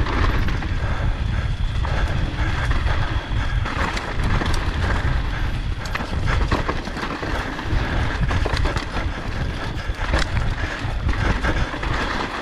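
Wind buffeting the camera microphone on a fast e-mountain-bike descent, with the tyres rolling over a rocky dirt trail and frequent clicks and rattles as the bike hits bumps.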